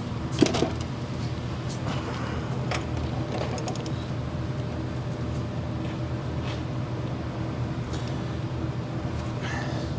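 A steady, even machine hum with a few light clicks and knocks, the sharpest knock about half a second in.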